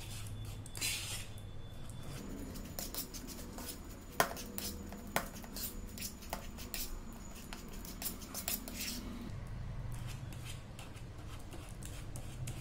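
Metal fork mashing a ripe banana in a plastic bowl: irregular scraping, clicks and taps of the fork against the bowl, with a few sharper taps around the middle and fewer near the end.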